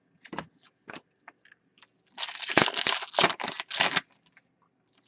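Trading cards and their packaging being handled: a few light taps and clicks, then about two seconds of dense crinkling rustle about two seconds in.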